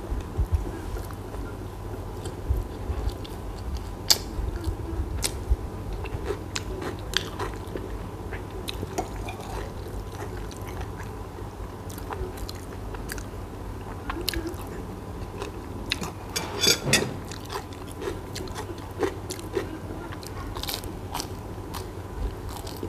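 A man biting and chewing bread close to a clip-on microphone, with sharp clicks now and then from a metal spoon against a glass bowl, a cluster of them about seventeen seconds in.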